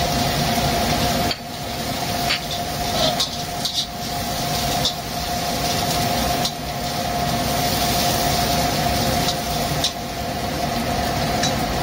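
Noisy kitchen range hood extractor fan running with a steady hum, over a spice paste of chili and candlenut frying in the pan, with a few light spatula clinks.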